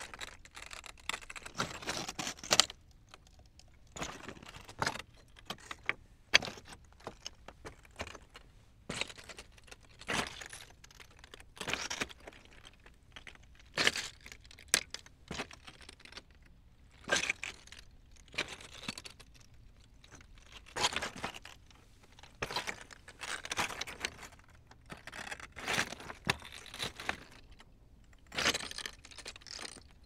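Footsteps walking over rocks: each step a crunch and clatter of stones underfoot, coming irregularly about one every second or two.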